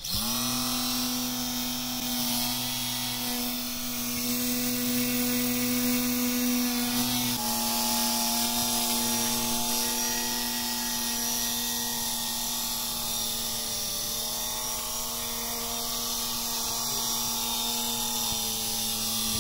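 A 7mm hollow-cup (coreless) micro motor driving a plastic reduction gear group spins up and turns a small propeller with a steady, pitched buzzing whine. About seven seconds in, the pitch drops slightly.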